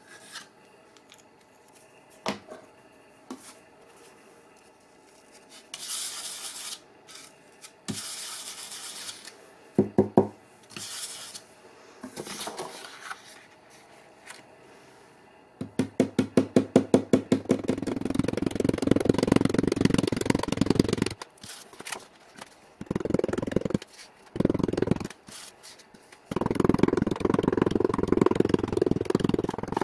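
Stiff stencil brush pouncing paint through a stencil onto a wooden sign: a quick run of taps, about eight a second, then stretches of rapid dabbing and scrubbing. Softer rustles and brushing come earlier.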